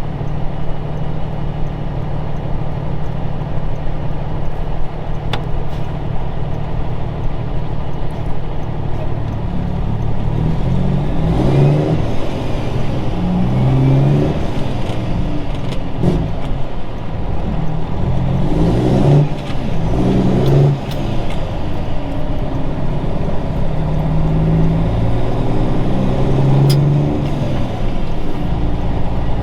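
1999 Peterbilt 379's Cummins Signature Series diesel engine running under way, a steady loud drone. From about ten seconds in, its pitch climbs and drops back several times as the truck works up through the gears. The owner believes this engine needs an overhaul.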